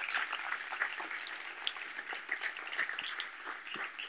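Audience applauding, a dense, even patter of many hands clapping.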